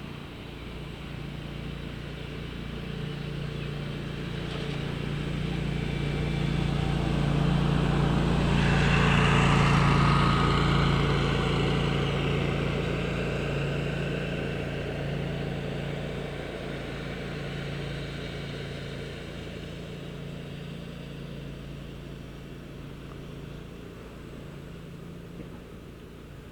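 A road vehicle passes by, growing louder over several seconds to a peak about ten seconds in, then slowly fading away. A steady low engine hum runs underneath throughout.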